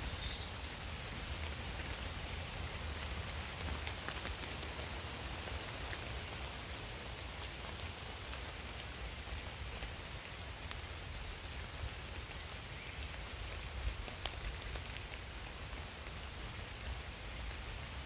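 Rain falling steadily on leaves and grass: an even hiss with scattered sharper drop ticks.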